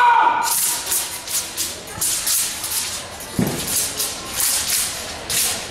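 Quick sharp swishes from a wushu performer's fast movements in a taolu routine, with a single dull thud about three and a half seconds in.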